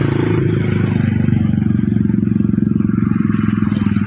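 Small engine running steadily, with an even, rapid firing pulse.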